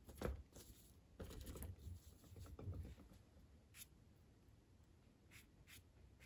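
Faint swishing and scratching of a watercolour paintbrush: paint being mixed in the palette, then brush strokes across the paper, with a few brief scratches in the second half.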